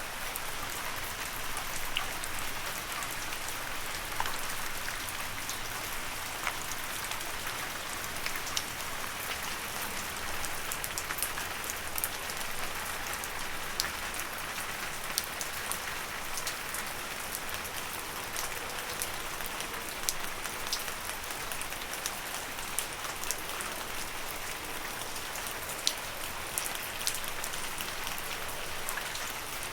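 Steady rain falling on leaves: an even hiss with many separate drops ticking sharply through it.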